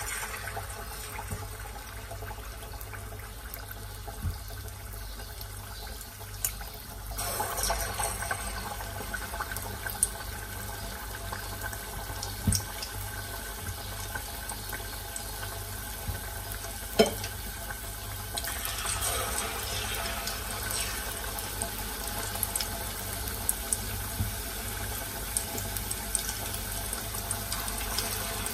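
Hot oil sizzling and bubbling in a saucepan as batter-coated mung bean balls deep-fry, the sizzle swelling louder about seven seconds in and again near twenty seconds as more balls go in. A few sharp pops or clicks stand out over it.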